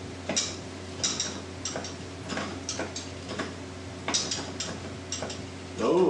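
Irregular light clicks, about one or two a second, from a small homemade Stirling engine's linkage and crank as it is worked by hand to get it turning over.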